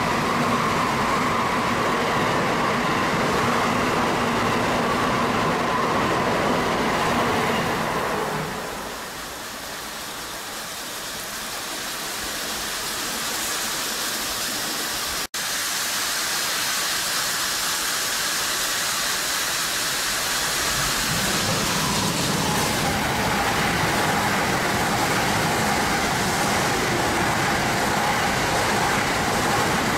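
Tokaido Shinkansen trains passing at reduced speed for the snow. The running noise of one train, with a steady whine through it, fades about eight seconds in. A second train's running noise builds from about twenty-one seconds in.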